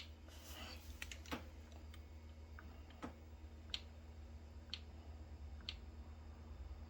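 Gree Amber Prestige heat pump outdoor unit running with a faint, steady low hum, overlaid by a brief hiss in the first second and a scatter of short sharp clicks, about one a second in the second half.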